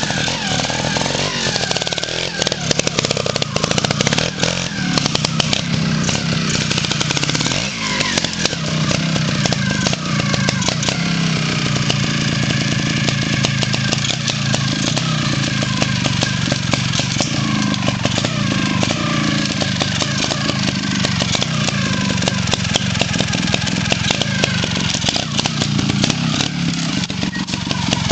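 Trials motorcycle engine running at low revs with throttle blips, the pitch rising and falling as the bike crawls over roots and up a steep dirt slope.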